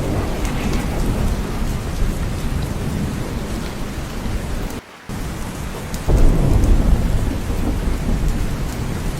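Steady heavy rain with low rolling thunder. The sound cuts out for a moment about five seconds in, then comes back with a louder low rumble of thunder from about six seconds.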